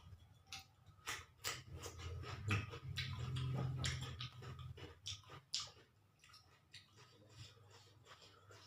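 Close-miked eating sounds: wet chewing, smacking and clicking of a mouthful of rice and balado egg. A low hum rises under the chewing about two seconds in and fades out around the fifth second.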